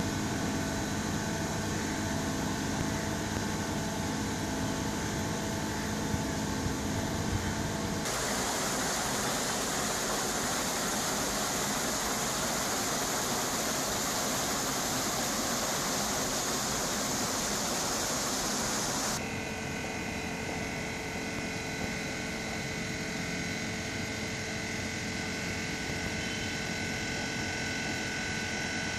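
Wastewater in an SBR aeration basin churning as air bubbles up through it, over a steady machinery hum. From about eight seconds in, an even, brighter rush of water flowing through an open treatment channel takes over for some eleven seconds, then cuts back to the basin's churning and hum.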